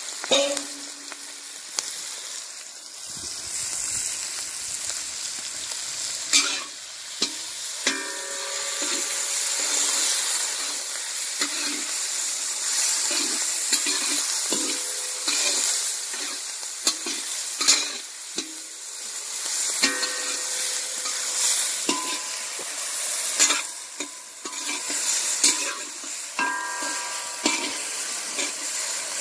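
Chopped cabbage sizzling in hot oil in a large iron kadai while a flat metal spatula stirs it, scraping and knocking against the pan with sharp clicks and occasional brief metallic ringing.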